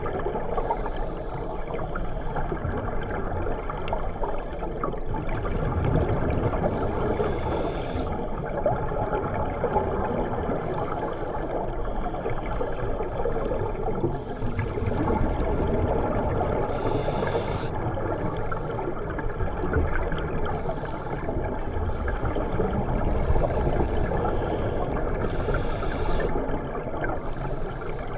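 Underwater sound of scuba divers breathing through regulators: a steady muffled bubbling rumble of exhaled air, with a brief hiss about every eight or nine seconds.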